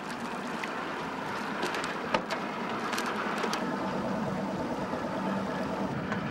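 Steady hum of a boat's outboard motor over water, with a few sharp clicks and knocks on the boat, the loudest about two seconds in.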